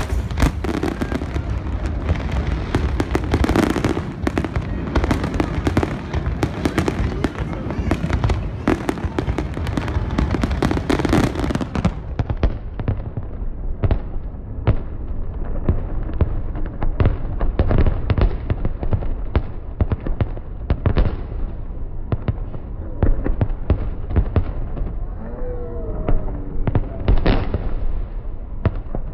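Aerial fireworks shells bursting in a dense, continuous barrage: many sharp bangs a second, overlapping one another.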